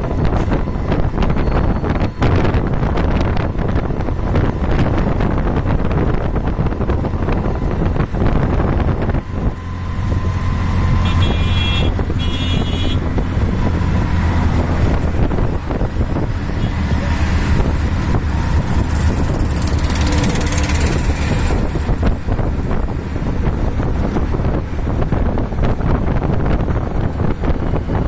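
Riding in an auto rickshaw at speed: its small engine running steadily under rushing wind on the microphone and the noise of passing traffic. A vehicle horn sounds twice in quick succession near the middle.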